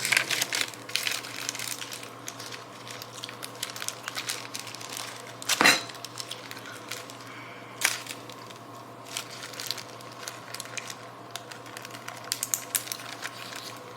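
Small kitchen handling noises: light crinkling and scattered clicks and taps, with two sharper knocks about six and eight seconds in.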